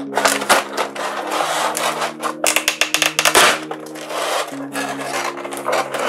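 Clear plastic packaging crinkling and rustling as hands pull a plastic bag off a figure's plastic blister tray, in irregular bursts that are loudest a little past the middle. Soft background music plays underneath.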